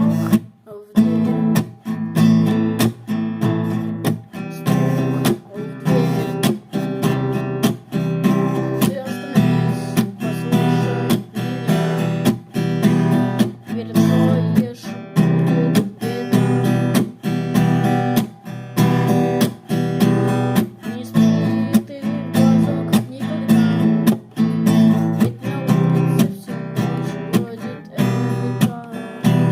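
Music: a guitar strummed in a steady rhythm, without vocals.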